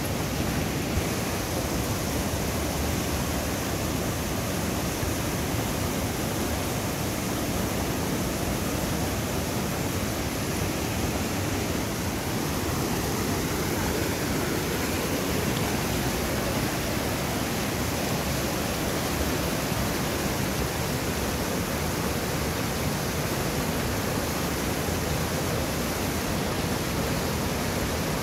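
Steady rush of a fast-flowing river, an even noise with no breaks.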